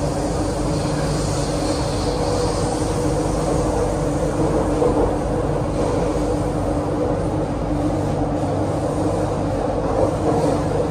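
MTR Island Line Q-Train (CRRC Qingdao Sifang electric multiple unit) running, heard from inside the carriage: a loud, steady rumble of wheels and running gear with an even low hum.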